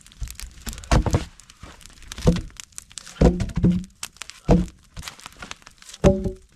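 Handling noise in a small shelter: about six hollow thunks, a few with a short ringing tone, at uneven intervals, with crinkling rustle between them.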